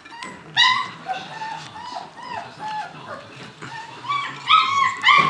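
Young puppy whimpering in a run of short, high-pitched whines and squeaks, louder near the end.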